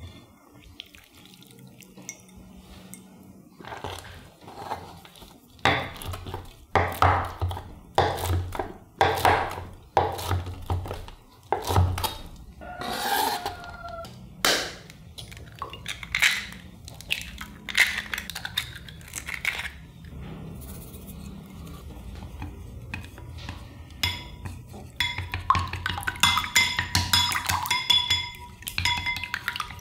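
Kitchen prep sounds in glass bowls: soft handling and knocks, eggs cracked open, then near the end chopsticks beating eggs, a rapid clicking against the glass bowl with a faint ring.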